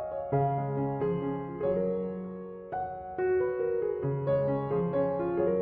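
Gentle piano background music, soft notes and chords.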